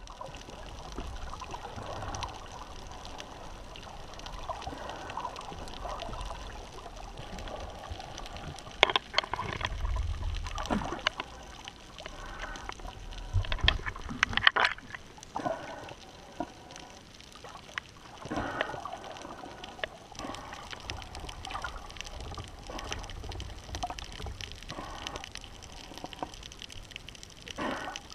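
Water sloshing and bubbling around an underwater camera, heard muffled, with sharp clicks and splashy bursts now and then, the loudest a little under halfway through.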